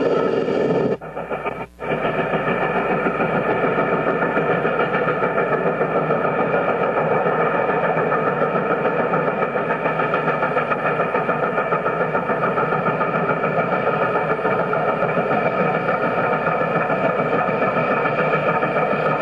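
Steady mechanical running drone of a motor vehicle, even and unchanging, with a fast flutter in its loudness. It cuts out briefly twice about a second or two in.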